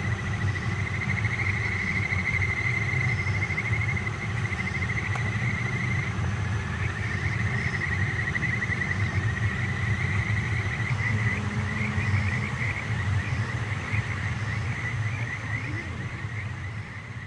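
Night insects calling in a continuous high trill, over a steady low rumble.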